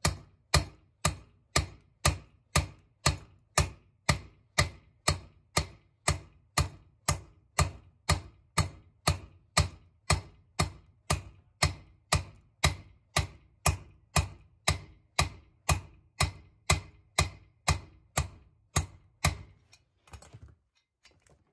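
Hammer striking a steel punch in a steady rhythm of about two blows a second, driving a valve guide into a Harley flathead cylinder head. The blows stop shortly before the end.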